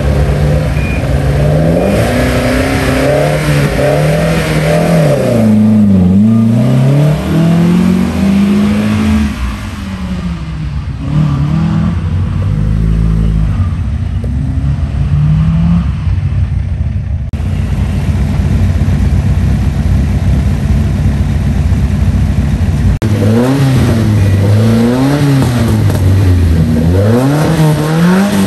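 Rally car engines revved hard in repeated blips, the pitch sweeping up and down: first the Nissan Violet (A11) rally car at the stage start, and after a cut about 23 seconds in, a classic Ford Escort rally car revving the same way. In the middle the engine sound is farther off and steadier, followed by a stretch of rushing noise.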